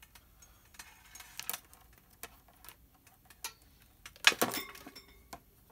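Small clicks and ticks as cables and a small home-built electronics box are handled, with one louder clack about four seconds in.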